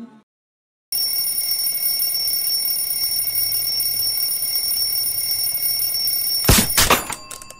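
Alarm clock ringing steadily and loudly, then a few sharp clattering knocks near the end as it is stopped.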